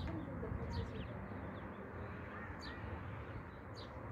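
A few short, high bird chirps over a steady low background hum.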